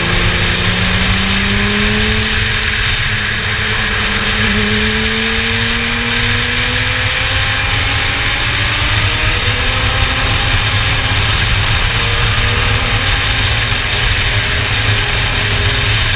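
Formula Yas 3000 race car running at speed under a loud, steady rush of engine and wind noise, its engine note rising slowly over the first several seconds.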